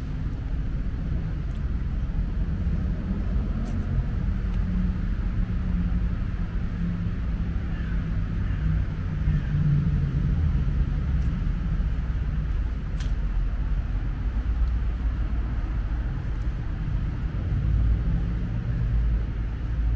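Steady low rumble of city road traffic, a continuous urban background with no single vehicle standing out.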